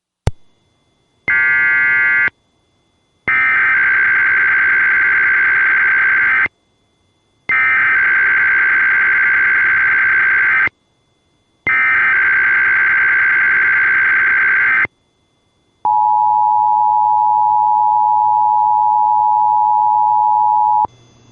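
Emergency Alert System tones for a Required Weekly Test. A click and a brief one-second data chirp come first, then three screeching digital header bursts of about three seconds each, a second apart. About sixteen seconds in comes roughly five seconds of the steady two-tone EAS attention signal.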